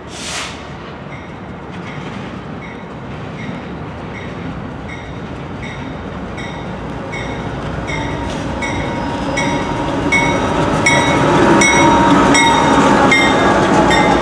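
CSX diesel locomotives on a light engine move approaching and passing close by, getting steadily louder, with a bell ringing evenly about twice a second throughout. There is a brief hiss right at the start.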